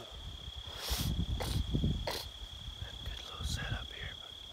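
Insects trilling in one steady high tone without a break, over a low uneven rumble on the microphone, with a few brief rustles.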